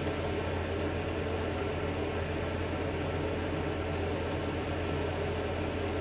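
Steady mechanical hum with an even hiss, like a running fan, unchanging throughout with no clicks or knocks.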